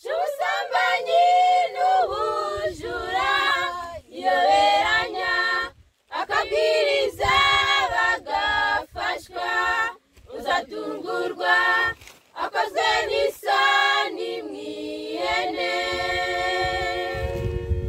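Girls' choir of young women singing a Kinyarwanda Christian hymn unaccompanied, in phrases with short breaks, ending on a long held note.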